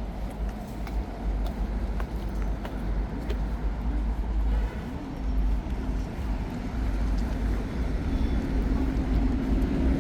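Road traffic on a city street: cars passing with a steady low rumble of engines and tyres. A vehicle's engine hum grows louder near the end as it comes closer.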